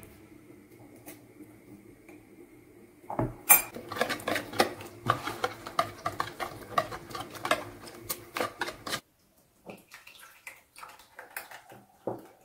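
A wire whisk beating yogurt and grated cucumber in a bowl: a quick, dense run of clinks and scrapes of the wires against the bowl starting about three seconds in, thinning to scattered clinks for the last few seconds.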